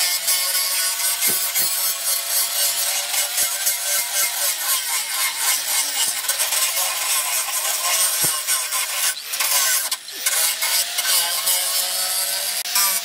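Electric angle grinder grinding a steel knife blade cut from a tractor plough disc: a loud, steady grinding with the motor's whine wavering as the disc is pressed and eased. It lets up briefly about ten seconds in, then bites again.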